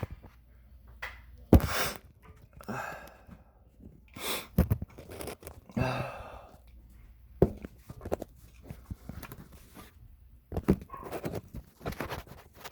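A person moving about in a dusty crawl space: several sharp knocks and thumps, with rustling and crunching of debris and heavy breathing in between.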